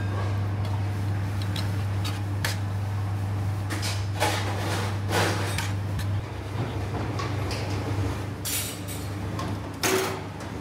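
Metal spoon scraping and clinking on an aluminium plate of cooked meat, with scattered clatters of metal dishes, over a steady low hum. A louder clatter comes near the end.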